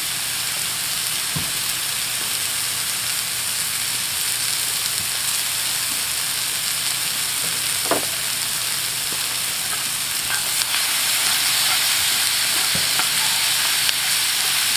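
Shaved beef, bell pepper and onion sizzling steadily in a hot cast iron skillet, growing a little louder near the end as the food is stirred with a spoon.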